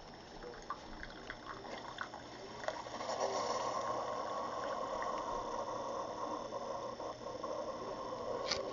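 Keurig single-serve coffee maker dispensing brewed coffee into a mug. A few drips come first, then a steady pouring stream from about three seconds in.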